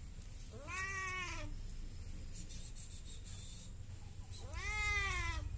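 Domestic cat meowing twice, each meow about a second long, rising then falling in pitch, about three seconds apart; the second is the louder.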